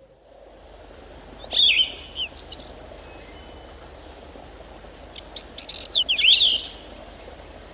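Songbird singing in two bursts of quick, jumping chirps, about a second and a half in and again around five to six seconds in, over a steady high chirring of insects.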